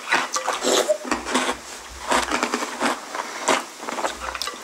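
Two people crunching and chewing chocolate balls in milk, a run of irregular crisp crunches.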